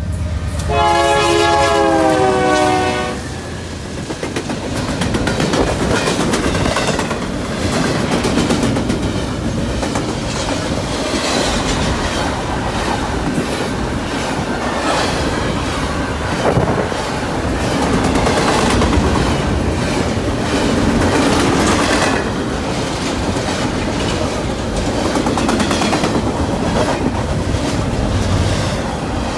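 Westbound BNSF intermodal train passing close by. About a second in, the lead GE C44-9W sounds its Nathan K3LA five-chime horn in one blast of about two and a half seconds, its pitch falling slightly. Then the double-stack container well cars roll past with a steady rumble and clicking of wheels over the rail joints.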